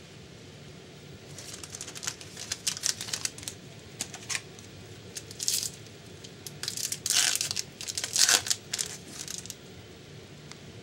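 Foil hockey card pack wrapper being torn open and crinkled by hand: irregular runs of sharp crackling that start about a second in and stop near the end, loudest in the second half.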